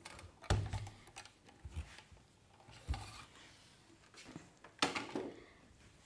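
Clothes iron sliding over and set down on a cloth-covered work surface, with fabric strips being rubbed and handled; a few dull knocks, the loudest about half a second in and near five seconds in.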